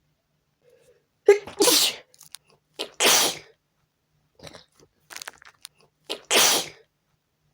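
A person sneezing three times in a sneezing fit, with fainter short sounds between the sneezes.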